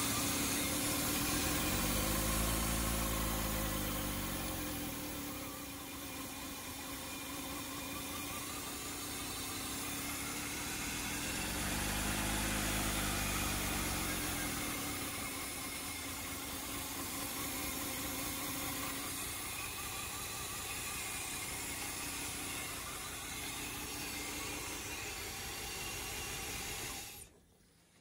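Mercedes 420SEL's 4.2-litre V8 idling with one fuel injector pulled out, so that cylinder gets no fuel and the engine runs on seven. The revs rise and fall back twice, about two seconds in and again about twelve seconds in.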